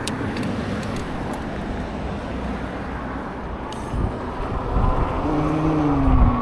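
Steady road traffic noise with a low rumble. In the last second or so, a passing vehicle's engine tone slides down in pitch.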